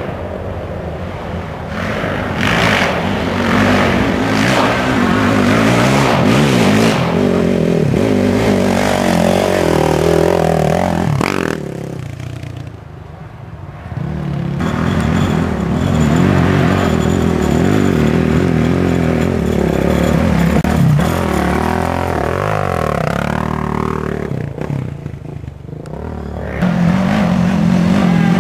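Racing quad ATV engines revving up and down as they pass one after another. The sound drops away briefly about twelve seconds in and again near the end before the next machines come through.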